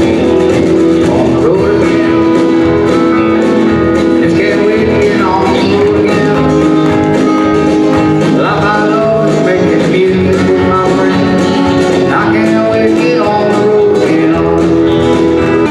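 Live country band playing: electric guitars and drums with a pedal steel guitar, its notes sliding up and down in pitch.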